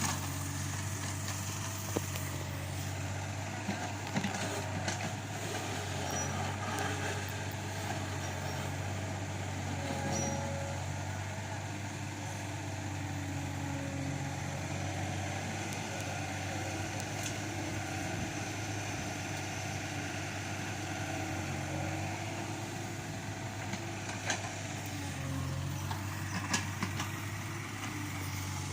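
Heavy machinery's diesel engine running steadily at a constant pitch, with a few short knocks or clanks scattered through.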